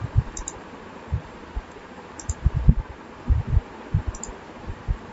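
Computer mouse clicking three times, about two seconds apart, over irregular low thumps.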